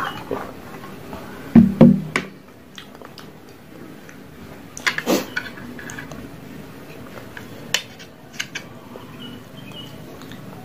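Knocks of tableware: a heavy drinking glass set down on the table with two loud thuds about a second and a half in, then metal chopsticks clinking against a stainless steel tray, with a sharper clink about five seconds in and a few lighter taps later.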